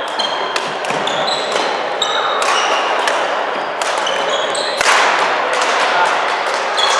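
Badminton rackets striking shuttlecocks in quick, irregular succession, mixed with short high squeaks of court shoes on the floor. The hits echo in a large sports hall.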